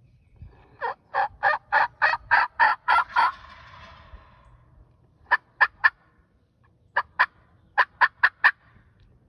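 Turkey calling: a run of about nine short, sharp, evenly spaced notes, then shorter groups of three, two and four notes.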